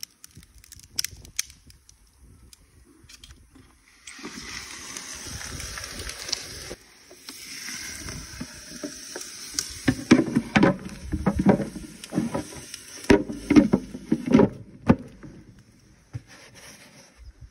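Liquid nitrogen poured into a plastic cooler over a tray, hissing as it boils off, with louder irregular crackling and knocking from about ten seconds in. A few small plastic clicks come first as the tray is set down.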